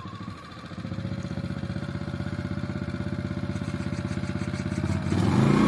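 Small single-cylinder petrol generator, an electric-vehicle range extender, starting by remote and running with a quick even pulse, rising slightly in pitch and growing louder near the end.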